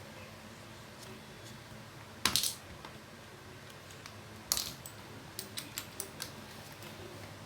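Hard plastic power tools being handled and set down: two sharp clacks about two seconds apart, then a quick run of small clicks.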